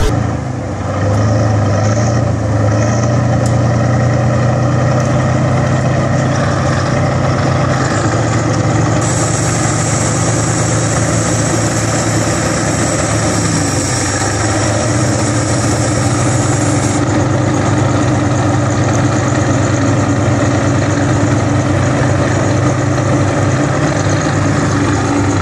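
Large articulated four-wheel-drive tractor's diesel engine running steadily under load, stuck in deep mud. A hiss joins it for several seconds in the middle.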